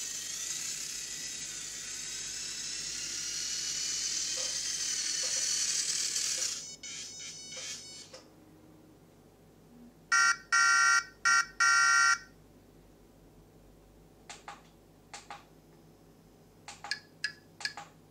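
Toy RC semi truck's built-in sound module playing through its small speaker: a steady electronic engine sound effect for the first six or seven seconds, then three horn blasts about ten to twelve seconds in. Several short electronic beeps follow near the end.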